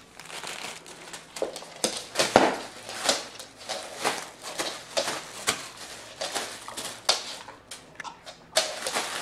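A dog biting and trampling plastic air-pillow packing: a busy run of plastic crinkling and crackling, with a number of louder sharp snaps.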